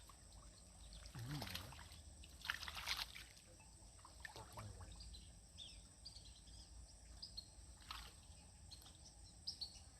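Quiet outdoor ambience with scattered short, high bird chirps. Two brief rushing noises come about one and a half and three seconds in.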